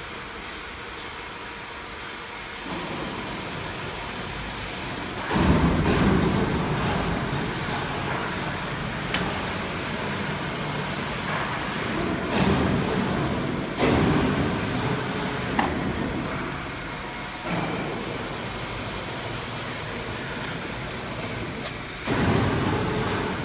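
Slitter-scorer machine for corrugated board, with thin rotary disc knives, running with a steady mechanical noise. About five seconds in the noise rises suddenly, and it surges several more times, with a few short sharp clicks.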